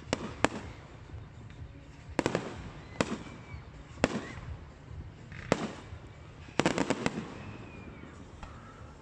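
Aerial fireworks bursting: sharp bangs roughly once a second, with quick runs of several bangs about two seconds in and again about seven seconds in.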